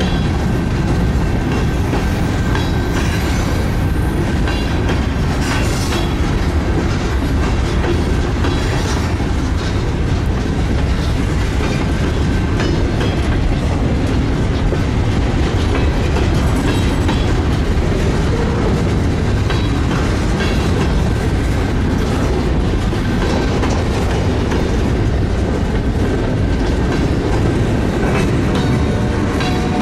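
Lake State Railway freight train rolling along the track: a steady, unbroken rumble with the wheels clacking over rail joints.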